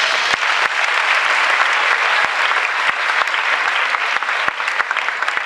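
Audience applauding: dense, steady clapping with a few sharper individual claps standing out.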